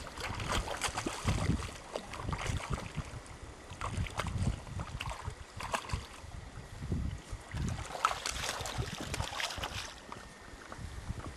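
Wind buffeting the microphone in irregular gusts, over an outdoor river backdrop, with scattered short knocks and clicks.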